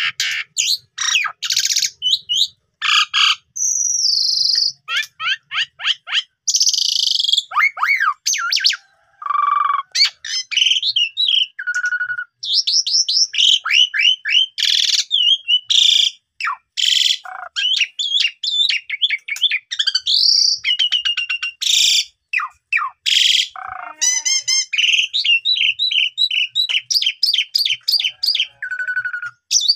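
Asian pied starling (jalak suren) singing continuously in full voice, one varied phrase after another with only short breaks: fast chattering trills, whistled glides and sharp chirps. It is pouring out its repertoire of learned phrases.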